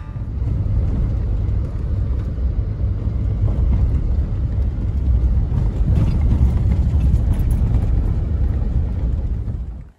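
Car driving on a dirt road, heard from inside the cabin: a steady low rumble of tyres and engine that cuts off suddenly near the end.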